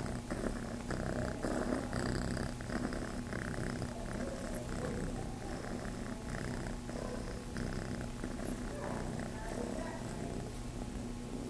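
A young kitten purring steadily and close up while it kneads and suckles at a cloth shirt, the comfort behaviour of a kitten looking to nurse. Soft scratchy rustling of the fabric under its paws comes in short repeated strokes.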